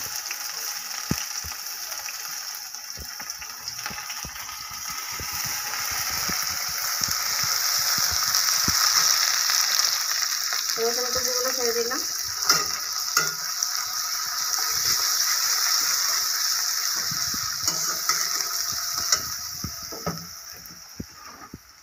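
Chopped onions sizzling in hot mustard oil in an aluminium kadai, stirred with a metal spatula that scrapes and knocks against the pan. The sizzle swells over the first several seconds and dies away near the end.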